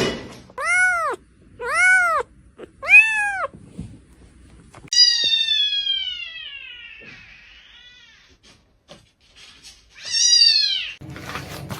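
A cat meowing: three short meows about a second apart, then a longer meow that slides down in pitch, and one more short meow near the end.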